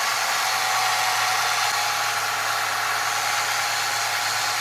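1996 Ford Mustang engine idling steadily with its newly fitted AC compressor and serpentine belt. It runs fairly quietly apart from a whine or rush that the owner puts down to the power steering pump.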